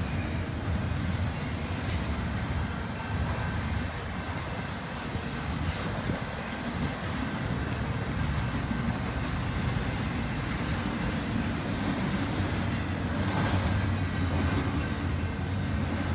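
Intermodal freight train's double-stack well cars and trailer flatcars rolling past: a steady low rumble of steel wheels on the rails, with a few clicks and clanks over the rail joints.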